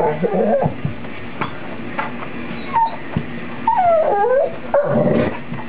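Golden retriever whining and yipping in short, wavering cries that slide up and down in pitch, the longest about four seconds in.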